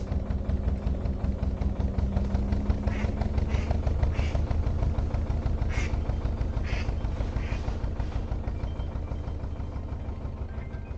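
Narrowboat's inboard engine running steadily under way, a low rhythmic thudding that eases off slightly near the end. A few short high squeaks sound over it in the middle.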